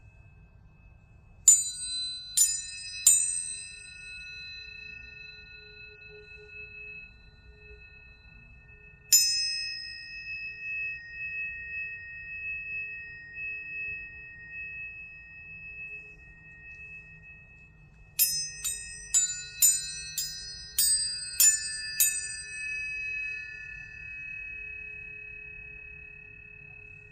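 Planetary tuning forks struck and left ringing: three strikes in quick succession about a second and a half in, one more about nine seconds in, then a quick run of about eight strikes around eighteen to twenty-two seconds. Each strike is a bright ping that settles into a steady high ring, with several tones sounding together.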